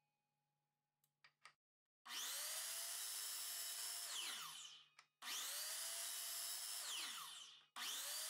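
Miter saw cutting slices off a wooden dowel against a stop block, started three times. Each time the motor whines up quickly, runs steadily for about two seconds while the blade comes down through the dowel, then winds down with a falling whine. It is quiet for the first two seconds apart from a few small clicks.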